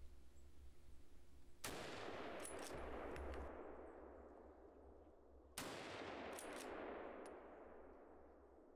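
Two hunting-rifle shots at a wild boar, about four seconds apart, each trailing off in a long rolling echo.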